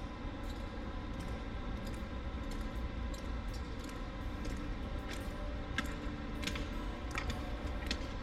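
Honor guard color team marching on a hard concrete floor, their shoes clicking sharply and irregularly, more often and more clearly in the second half, over a steady low hum from the hall.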